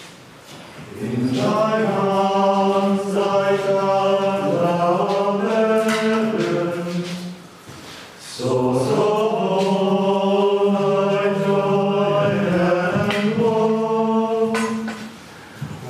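Men's voices singing plainchant, held notes moving step by step in two long phrases with a short breath between them about halfway through.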